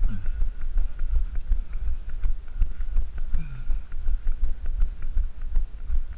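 A runner's footfalls on asphalt jolting a body-worn camera in a steady rhythm of thuds, about three a second, with wind buffeting the microphone.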